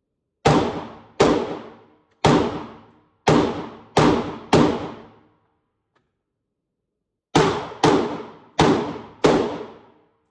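Semi-automatic rifle fired ten times, six shots at an uneven pace, then a pause of about three seconds, then four more. Each sharp report has a short ringing tail.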